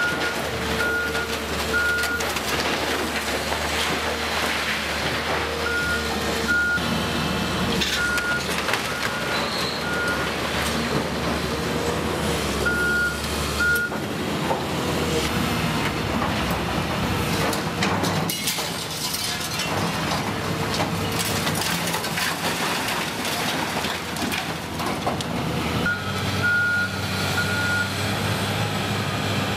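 Caterpillar 328C tracked excavator's diesel engine running under load as it tears down a brick and timber building, with crunching and clattering debris throughout. A reversing alarm sounds in several spells of short, evenly spaced beeps.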